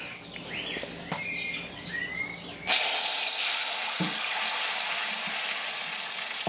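Molcajete-ground chile salsa hitting a very hot cazuela of lard: a sudden loud sizzle about two and a half seconds in that keeps hissing steadily as the salsa fries.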